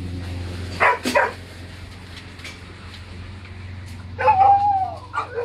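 Dogs barking in shelter kennels: two short barks about a second in, then a longer bark that falls in pitch past the four-second mark, followed by more barks near the end.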